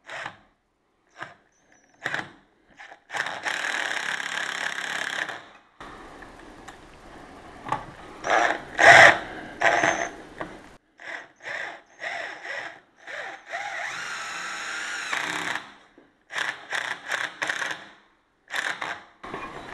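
Power drill driving self-drilling screws through a metal door frame to fix a deadlock's keeper. It runs in short bursts, with two longer runs of a couple of seconds each, about three seconds in and about fourteen seconds in.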